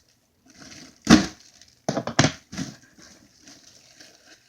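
A loud sharp knock about a second in, then a quick cluster of sharp cracks and crackles a second later, like something being handled or knocked close to the microphone.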